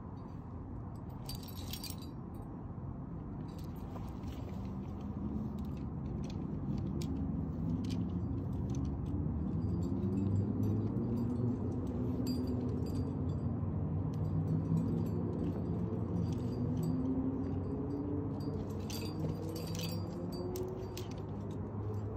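Metal climbing gear clinking and jangling now and then: carabiners and other protection racked on harnesses. The clinks are thickest about a second in and again near the end, over a low rumble that grows louder through the middle.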